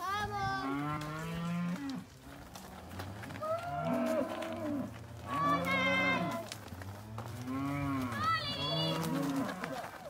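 Dairy heifers mooing as the herd is moved along: several long calls, about one every two seconds, some overlapping.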